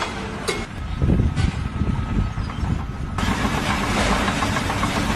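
An engine running steadily with a low rumble, with a few sharp clicks early on and a sudden rise in noisy hiss about three seconds in.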